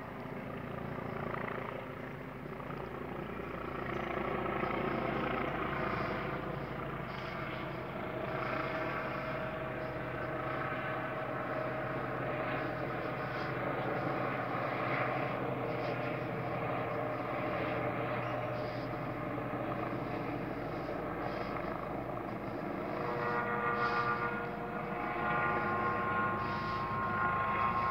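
Police helicopter flying overhead at height: a continuous drone of rotor and engine that swells and fades a little as it circles.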